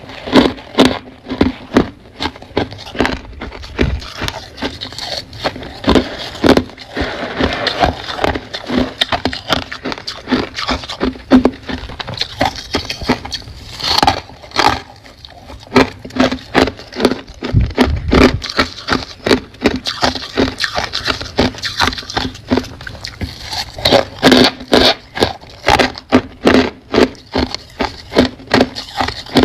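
Close-miked crunching of humidifier frost being bitten and chewed fast: a dense run of sharp, irregular crunches, several a second, with a short pause about halfway through.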